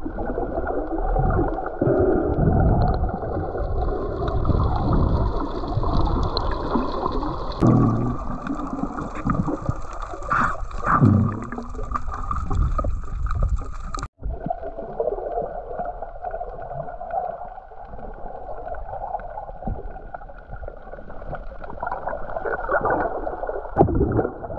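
Muffled water sloshing and gurgling, with low rumbling and no clear tones. There is a brief dropout about halfway through.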